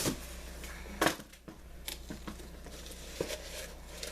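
Ceramic bowls and their packing being handled: a handful of light knocks with soft rustling between them.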